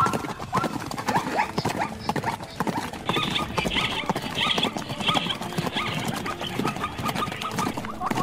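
Short rising animal calls repeated in quick series, about three or four a second, mostly in the first couple of seconds. Higher chirps come in the middle, and scattered knocks and thuds run throughout.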